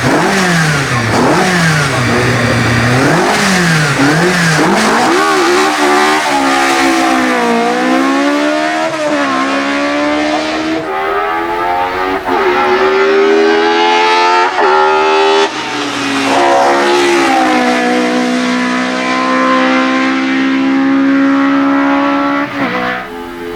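Ford Escort Mk2's naturally aspirated Cosworth BDA four-cylinder race engine revving hard: a few quick blips of the throttle, then accelerating with the revs climbing and dropping sharply at each gear change.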